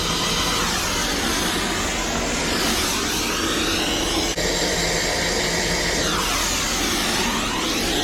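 Brazing torch flame hissing steadily while soldering copper refrigerant line joints, its tone slowly sweeping up and down as the flame moves. A brief break comes a little past halfway.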